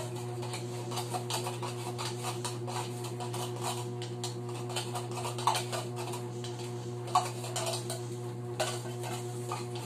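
Metal spoon scraping and clinking inside an opened tin can of condensed milk as it is spooned out: a run of small clicks and scrapes with a few louder knocks, over a steady low hum.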